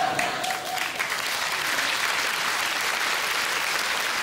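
Theatre audience applauding steadily. A faint held tone fades out about a second in.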